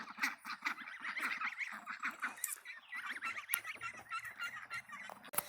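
A group of ducks calling: a dense run of short quacks and chatter, with a sharp click near the end.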